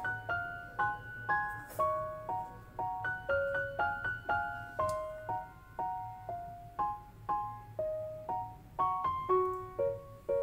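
Background music: a piano melody of single notes, each fading after it is struck.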